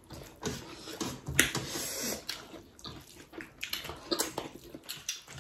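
Close-up eating sounds: wet chewing and lip smacks, along with fingers squishing rice and black dal together, heard as irregular short clicks and wet noises.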